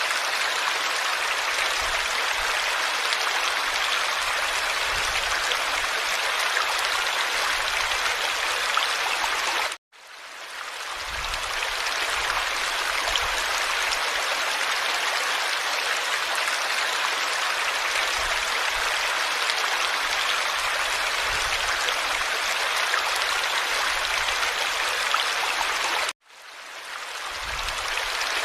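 Steady rushing of a flowing stream. It cuts out abruptly twice, about ten seconds in and near the end, and each time fades back in over a second or so.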